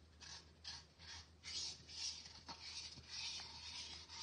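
Hands kneading and folding a soft, wet sourdough dough in a bowl: faint sticky rubbing swishes, about two a second.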